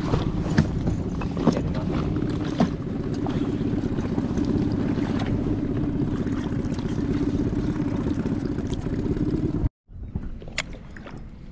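Fishing boat's engine running steadily, with a few knocks on the boat. About ten seconds in the sound cuts off abruptly, and a quieter background with light clicks follows.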